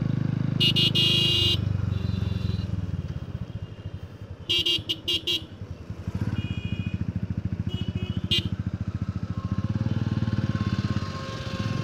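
Motorcycle engine running under way, its note dipping around three to five seconds in and picking up again from about six seconds. Vehicle horns honk over it: a long honk near the start, a quick series of short toots around four to five seconds in, and more short honks around six and eight seconds.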